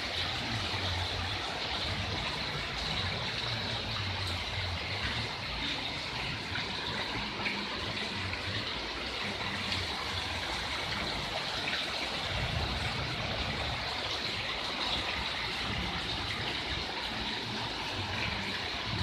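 Heavy rain pouring down in a windstorm, a steady dense hiss, with gusts of wind rumbling on the microphone now and then.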